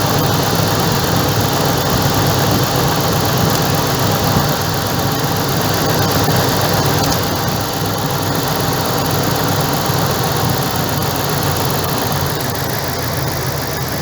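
2012 Dodge Ram pickup's engine idling steadily.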